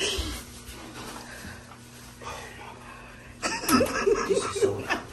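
People laughing and talking over low murmur, with the laughter breaking out loudly about three and a half seconds in.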